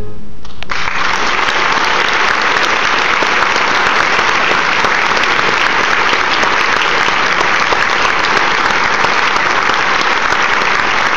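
Audience applause that breaks out less than a second in and carries on steadily and loudly.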